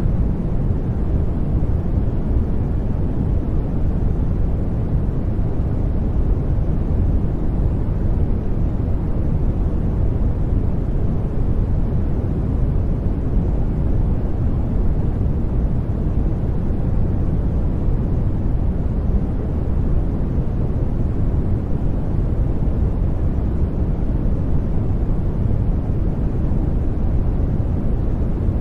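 Steady, unchanging generated noise, sold as white noise, heaviest in the bass and thinning out toward the treble, so it sounds like a deep, even rush rather than a bright hiss.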